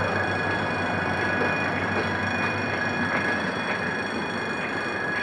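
Passenger coaches of a diesel-hauled train rolling past close by as the train pulls out of the station, a steady rumble of wheels on rail with faint clicks at the rail joints and a thin steady squeal from the wheels.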